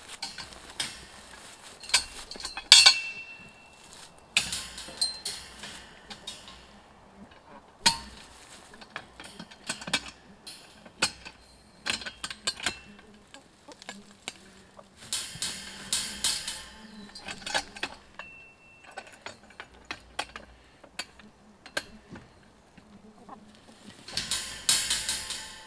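Lever-action T-post puller being pumped to jack a steel T-post out of the ground: many sharp metal clicks and clanks at an irregular pace, with a few longer scraping rattles.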